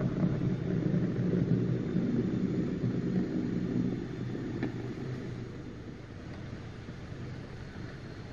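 OO gauge model Ruston 48DS diesel shunter running along the track with a wagon: a steady low mechanical hum and rumble, louder for the first half as it passes close, then fading.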